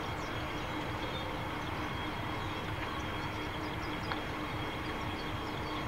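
Diesel-electric freight locomotives BL32, XR557 and X48 idling at a standstill, a steady rumble with a constant hum. A single light click comes about four seconds in.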